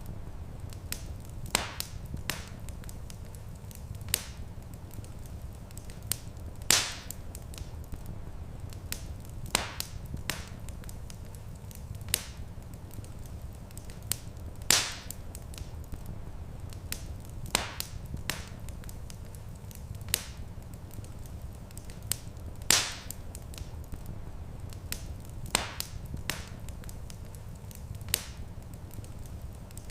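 Wood fire crackling in a stone fireplace: sharp pops and snaps at irregular intervals, a few much louder than the rest, over a steady low rumble.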